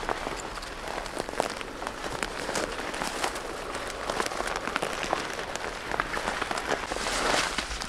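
People wading through dense, waist-high weeds and brush: steady rustling and swishing of stems and leaves against legs and clothing, full of small crackles and snaps, a little louder near the end.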